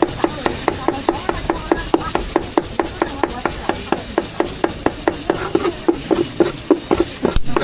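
Cleaver chopping meat on a wooden board for roujiamo, in a fast, even rhythm of about five chops a second.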